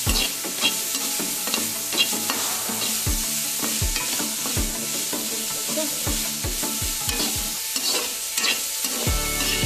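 Chopped vegetables sizzling in hot oil in a wok while a metal spatula stirs them, scraping and knocking against the pan again and again. Music comes in near the end.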